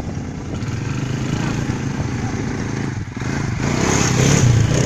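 Quad bike (ATV) engines running. After a brief dip about three seconds in, the engine gets louder.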